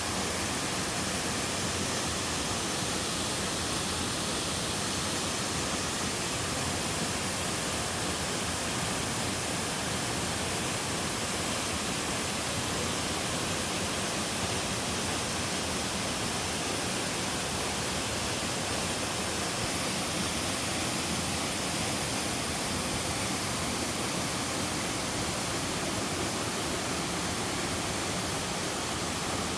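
Waterfall pouring into a pool, a steady dense rush of falling water with no change throughout.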